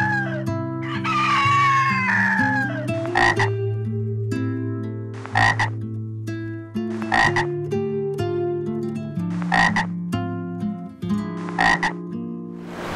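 A rooster crow falling in pitch about a second in, then five short animal calls about two seconds apart, over light background music.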